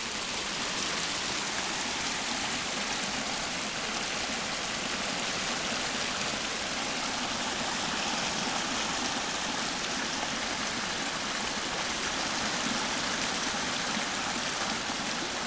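Small woodland brook swollen by heavy rain, running fast and full: a steady rush of water. Normally only a trickle, it is in spate after the downpour.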